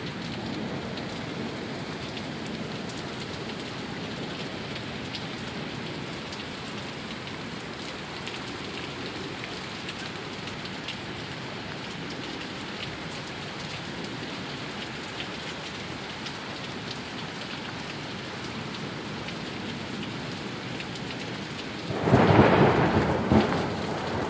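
Heavy downpour of rain falling steadily in a sheet, hissing on the ground and surfaces. About 22 seconds in, a sudden loud clap of thunder breaks over it and rumbles, with a second peak shortly after.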